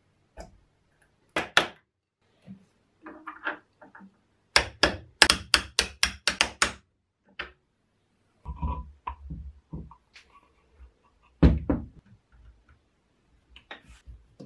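Sharp knocks and taps of metal parts of a 1950s Black & Decker electric jack hammer's aluminium housing being handled and fitted during reassembly: a quick run of about ten taps, some four or five a second, around the middle, then scattered clatter and one heavy knock near the end.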